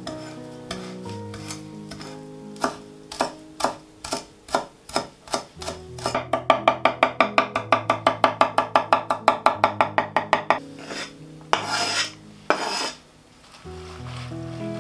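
Chef's knife chopping fresh parsley on an end-grain wooden cutting board: separate chops about two a second, then about six seconds in a fast, even run of about eight chops a second lasting some four seconds.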